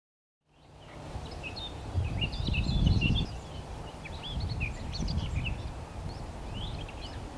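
Small birds singing and chirping in quick, varied phrases, with low wind rumble on the microphone swelling twice. The sound fades in just after the start.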